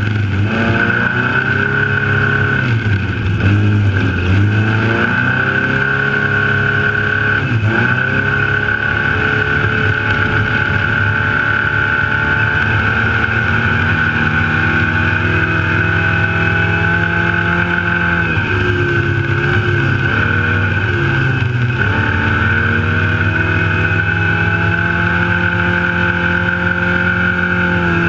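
Trophylite desert race truck's engine running hard at speed, its note dipping and climbing back a few times, with a steady high whine over it.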